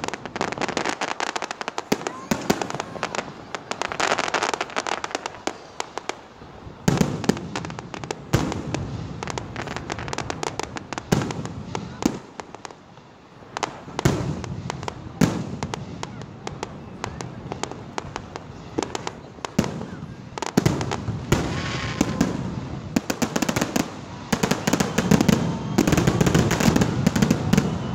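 Fireworks display: shells bursting overhead with dense crackling and popping in quick volleys, easing off briefly about twelve seconds in before picking up again.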